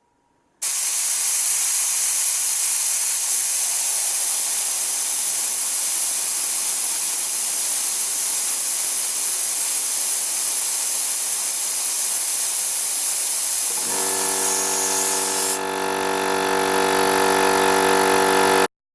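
Small air compressor with a newly replaced pressure switch running: a loud steady hiss of air, joined about three quarters of the way through by a pitched motor drone that grows a little louder before the sound stops abruptly.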